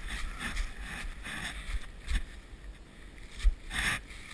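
Footsteps and rustling through dry fallen leaves as the wearer of a body-mounted camera moves, with clothing brushing the microphone and a sharp bump on it near the end.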